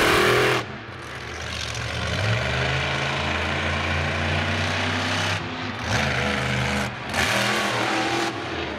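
Mini monster truck's engine running with a steady low note, revving up hard in several surges as the truck drives over the grass.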